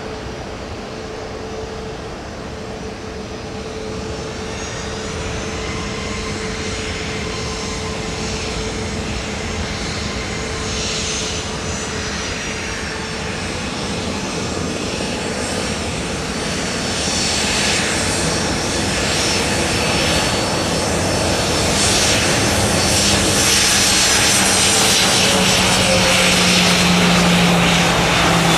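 Passenger aircraft engines running, growing steadily louder as the plane comes closer. A steady hum sits under it, and a high whine slowly falls in pitch near the end.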